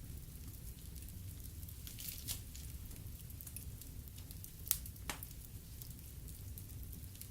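Wood fire crackling in a fireplace: a steady low burning rumble with scattered sharp pops, the loudest pop a little under five seconds in.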